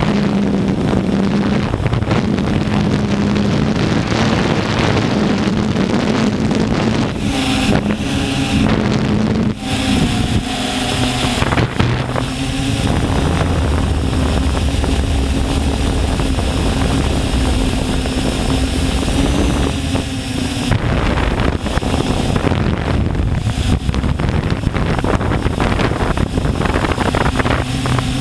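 Multirotor drone's electric motors and propellers buzzing steadily, heard from its own onboard camera, the pitch shifting up and down a few times. Wind rushes over the microphone.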